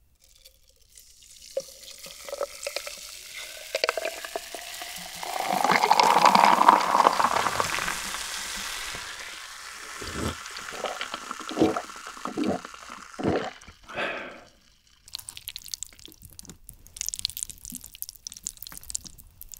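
Coca-Cola poured from a plastic bottle into a glass, rising in pitch as the glass fills, then fizzing. About six gulps follow as the cola is drunk. Near the end come soft wet sounds of sauce-coated black bean ramen noodles being lifted with chopsticks.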